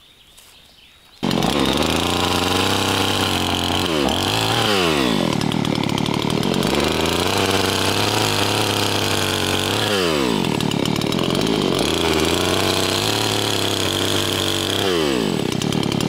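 Chainsaw running hard while cutting dead pine for firewood. It starts abruptly about a second in, and its engine speed sags and recovers three times as the chain loads up in the wood.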